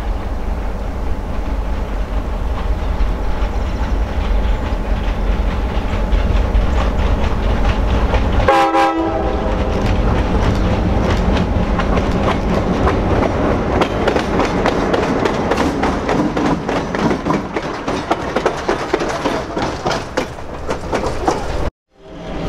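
A train led by EMD F-unit diesel locomotives rolling close by, first a heavy low engine rumble. About eight seconds in the sound changes abruptly: a brief horn note, then the wheels clattering and rattling over the rails. Near the end the sound cuts out abruptly for a moment.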